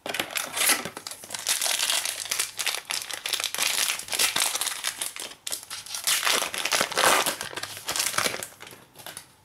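Foil wrapper of a 2017-18 Prizm basketball card pack crinkling and crackling in bursts as it is handled and torn open and the cards are pulled out, with a brief pause about halfway through.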